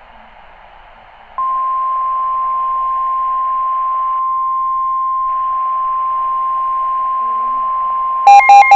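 NOAA Weather Radio warning alarm tone, the 1050 Hz alert: faint radio hiss, then about a second and a half in a single loud steady beep comes on and holds. It signals that a warning broadcast is about to follow, here a tornado warning. Near the end a rapid pulsing beep starts over it.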